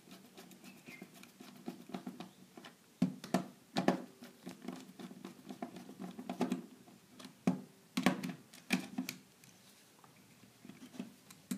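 Irregular light clicks and knocks as a screwdriver turns the terminal screws joining a thermal overload relay to a plastic contactor, with the units shifting in the hand.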